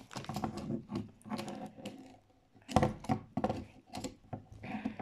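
Hands working with craft materials: irregular clicks, taps and rustles of handled plastic and packaging, with a sharper knock a little before the middle.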